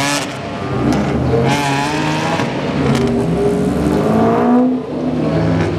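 Race car engines accelerating, several rising runs of revs one after another as the cars pull away, with a brief lull near the end.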